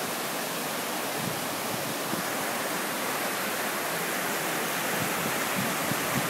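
Steady rushing noise of heavy monsoon rain and fast-flowing floodwater.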